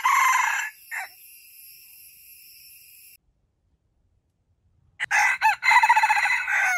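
Red junglefowl rooster crowing: the end of one crow at the start and a short call about a second in, over a steady high insect drone that cuts off abruptly about three seconds in. After a silence, a second full crow comes about five seconds in.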